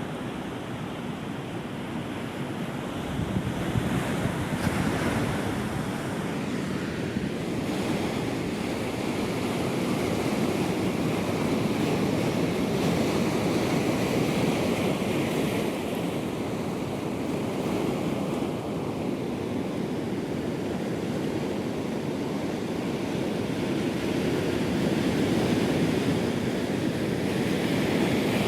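Ocean surf breaking and washing ashore: a continuous rushing wash that swells louder about four seconds in and again near the end.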